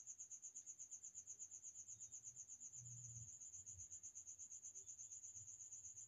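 Near silence with a faint, high-pitched chirping that pulses steadily about eight times a second.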